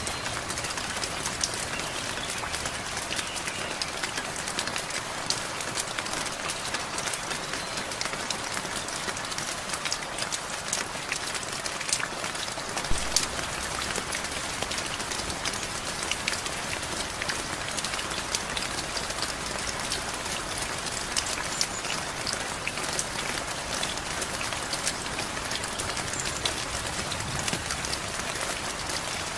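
Steady rain, a continuous hiss with many separate drops ticking on a hard surface, and a few louder drop strikes about halfway through.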